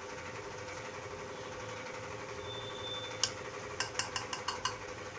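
Dosa cooking on a non-stick pan over a gas stove burner: a steady low hiss with a faint hum under it. In the second half comes a quick run of six or seven sharp clicks.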